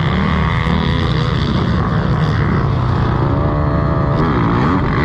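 Several Yamaha YFZ450R single-cylinder four-stroke quad engines running together at the starting gate. From about three seconds in, the engines are revved up and down.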